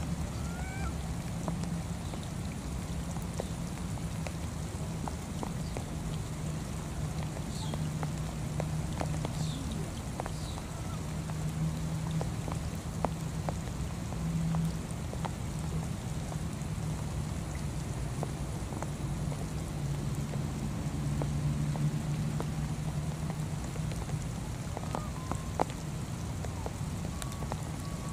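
Heavy rain falling on palm fronds and leaves: a steady hiss with many scattered drop taps. Underneath runs a low hum that swells and fades, and a few brief high chirps come about a third of the way in and again near the end.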